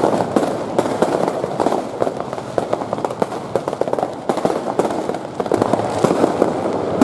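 Many fireworks and firecrackers going off at once: a dense, unbroken run of sharp pops and crackles.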